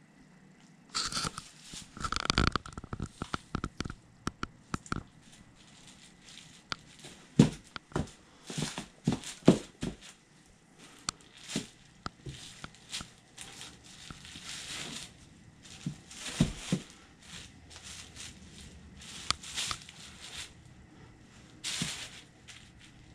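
Black leather Sendra cowboy boots stomping and grinding a cheeseburger on a plastic sheet: irregular heel thuds, the heaviest a third of the way in, with crinkling plastic and crunching food.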